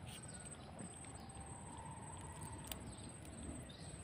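Faint outdoor ambience: a high insect trill pulsing steadily, short falling bird chirps repeating, and a few light clicks from a telescopic fishing pole being handled.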